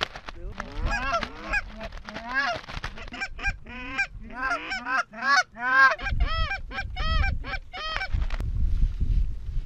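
A quick run of goose honks, each a short note that rises and falls in pitch, coming faster around the middle and stopping about eight seconds in. Wind rumbles on the microphone in the second half.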